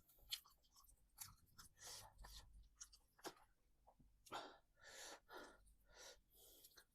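A person chewing food close to the microphone: soft, irregular mouth sounds with small clicks.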